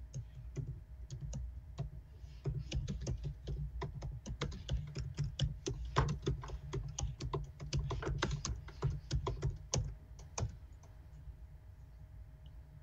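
Typing on a computer keyboard: a run of quick, irregular key clicks that stops about ten seconds in, over a low steady hum.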